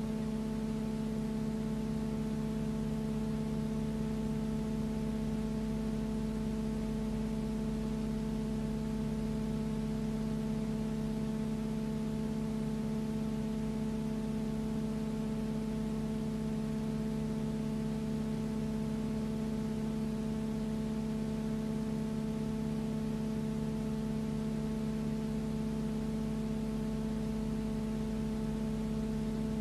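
Steady machine hum with several constant tones over a hiss, unchanging throughout. It does not rise or fall as the aircraft in the picture pass.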